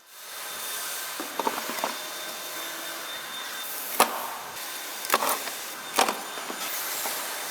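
Factory machinery noise: a steady hiss with scattered sharp knocks, the loudest about four, five and six seconds in.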